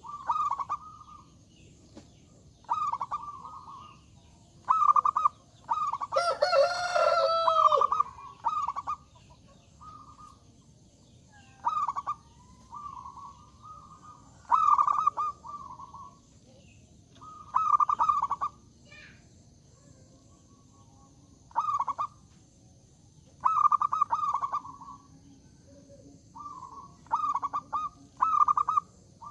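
Zebra dove (perkutut) repeating its short, rolling coo every two to three seconds. A rooster crows once, about six seconds in, the longest call.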